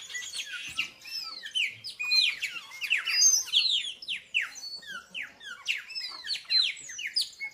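Many small birds chirping at once: dense, overlapping short chirps that sweep downward in pitch, several a second.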